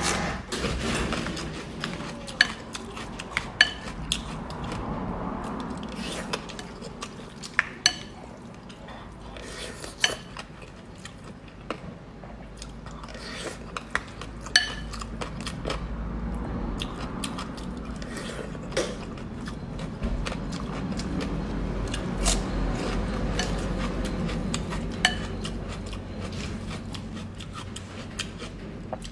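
Eating utensils clinking against a dish now and then, about a dozen sharp clinks at irregular intervals, over a steady low rumble.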